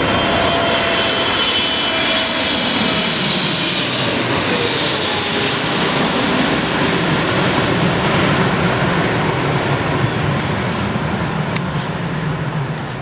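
Jet engines of a Boeing 777 airliner passing low overhead on final approach: a loud roar with a high fan whine that slides down in pitch as the plane goes over about four to five seconds in, then a steady low rumble that fades a little near the end.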